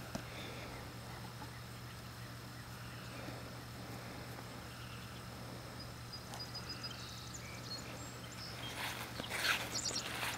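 Quiet outdoor ambience: a steady low hum under faint high chirping that repeats evenly for a couple of seconds midway. A few soft short rustles come near the end.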